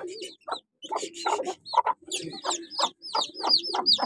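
Chicks peeping in a rapid series of short, high, downward-slurred cheeps, coming faster in the second half, mixed with an Aseel hen's low clucking.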